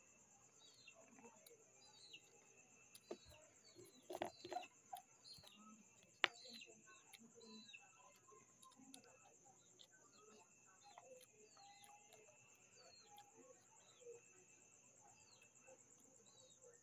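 Faint eating sounds of crispy fried pork belly and rice eaten by hand, with a few sharper crunches or clicks about four seconds in and one sharp click about six seconds in. Behind them, a steady high-pitched drone of night insects and short falling chirps repeating every second or so.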